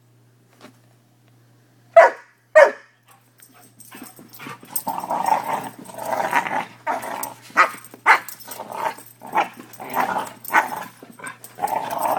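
Newfoundland–Labrador mix puppies playing: two sharp barks about two seconds in, then a long run of play growling broken by repeated barks.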